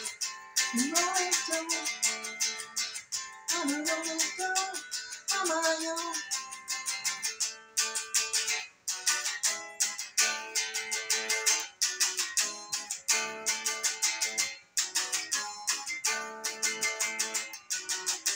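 Kramer electric guitar played with a pick as an instrumental break: bent, wavering lead notes over about the first six seconds, then fast picked notes.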